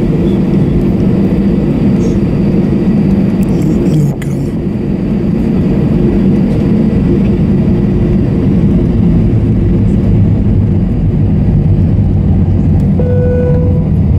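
Cabin noise of an Airbus A321-232 from a window seat: its IAE V2500 jet engines and the airframe make a loud, steady rumble with a low hum in it. The noise dips briefly about four seconds in, and a thin steady tone joins near the end.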